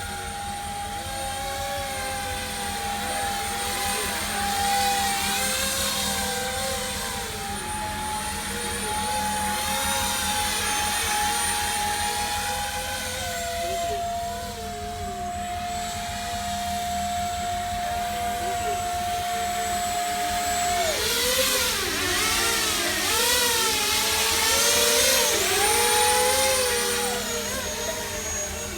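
Electric motors and propellers of a flying RC Millennium Falcon model whirring as it hovers and manoeuvres, their pitch wavering up and down with throttle changes. A thin steady whine underneath jumps to a new pitch several times.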